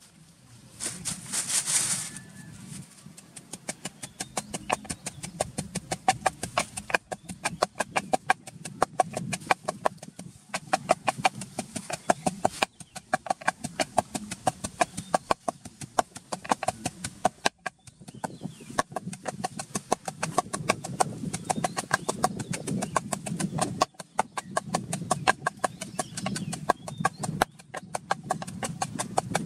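Wooden pestle pounding a marinade paste in a wooden mortar, a rapid steady rhythm of dull knocks several times a second with a few brief pauses. A short rushing noise comes about a second in, before the pounding starts.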